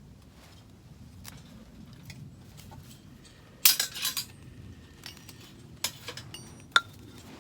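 Metal objects being handled and knocked together: a clatter of clinks about halfway through, then two sharp clinks near the end, the last with a brief metallic ring.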